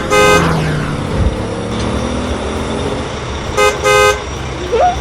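Cartoon vehicle horn giving two short toots at the start and two more near the end, over a steady engine rumble.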